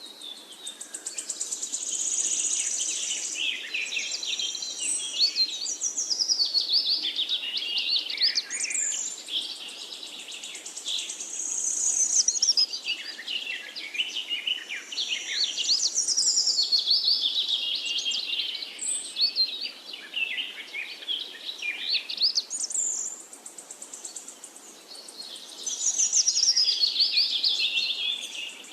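Songbirds singing in a dense, continuous chorus of high chirps, fast trills and warbled phrases that overlap, swelling and easing every few seconds.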